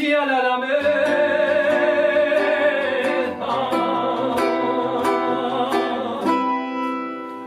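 Male voice holding one long final sung note over a nylon-string classical guitar accompaniment. The voice stops about six seconds in, and the guitar's last notes ring on and fade.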